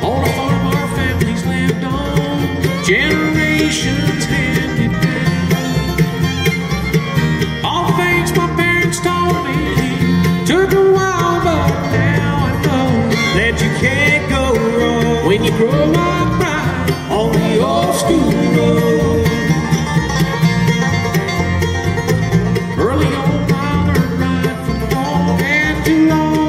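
Live bluegrass band playing an up-tempo number: mandolin, fiddle, banjo, guitar and bass together, with a man singing lead at times.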